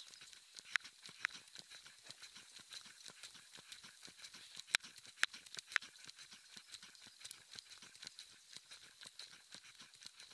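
Faint footsteps and the light rattling and clicking of carried gear as a person walks on pavement, with a few sharper clicks scattered through and a faint steady high tone behind.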